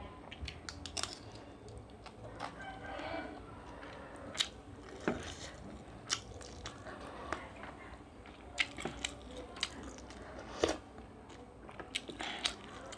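A person eating seafood fried rice close to the microphone: chewing and biting, with many short, sharp clicks at irregular intervals.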